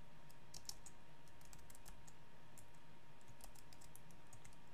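Computer keyboard being typed on: a faint, irregular run of key clicks, over a faint steady hum.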